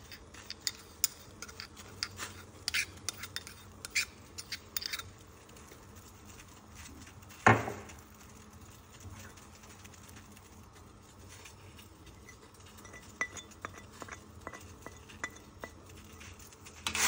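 Kitchenware clinking as spices are emptied into a stainless steel saucepan from a marble mortar and a plate: a run of sharp clinks and taps, then one louder knock about seven and a half seconds in, and a few light ticks near the end as a spoon scrapes the plate.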